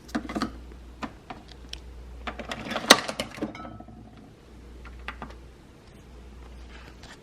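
A series of light clicks and knocks in a small room, the loudest about three seconds in, then a few faint ticks.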